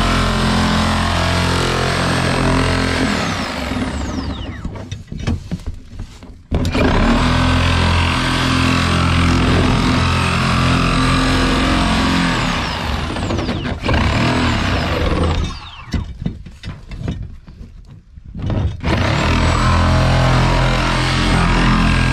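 Corded reciprocating saw cutting through the plastic top of an IBC tote in three long runs. Each run ends with the motor's whine falling as it spins down, followed by a short pause.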